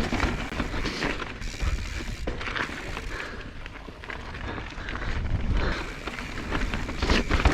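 Mountain bike riding down a rough dirt trail: tyres on loose ground and the bike clattering and rattling over bumps, in an irregular stream of knocks with a rumbling low end.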